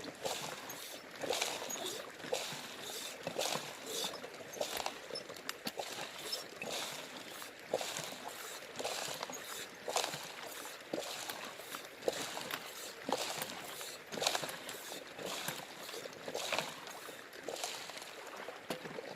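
Gravel and water being worked by hand in a shallow river while prospecting for gold: irregular splashes and gravelly scrapes, one every second or so.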